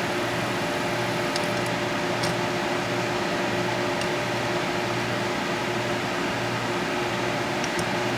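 Steady mechanical hum with a hiss, holding a couple of faint steady tones; a few faint, light ticks come now and then over it.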